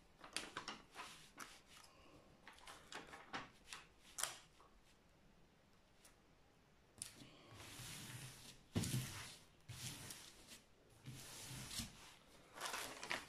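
Plastic protective film and paper backing of a diamond painting canvas rustling and crinkling as hands smooth and shift them flat, with scattered soft ticks and slides. The rustling comes in short bursts, louder about eight seconds in and again near the end.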